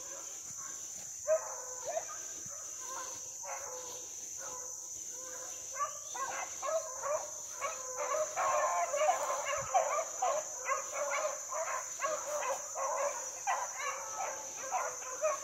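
A pack of hounds baying and yelping while running a trail. At first the cries are scattered, then from about six seconds in they become a loud, continuous, overlapping run of cries.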